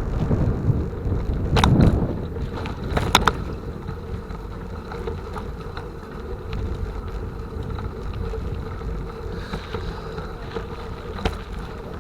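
Wind buffeting the microphone over the rumble of a bicycle ride, with a few sharp clicks about two seconds in, again a second later, and once near the end.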